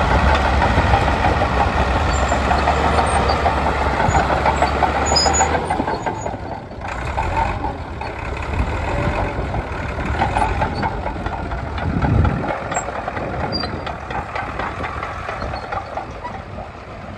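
David Brown 50TD crawler tractor's six-cylinder diesel engine running as it drives over grass. The engine is loud and steady for the first five or six seconds, then quieter, with a short low burst of engine sound about twelve seconds in.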